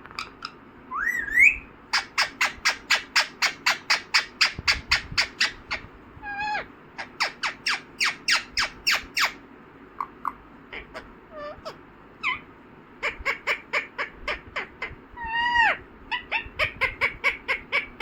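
Ringneck parrot calling: long runs of sharp, rapid squawks at about five a second, broken by a few whistled calls that glide up or bend down.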